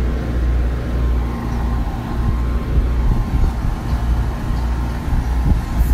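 Steady low engine hum with a faint steady high tone above it.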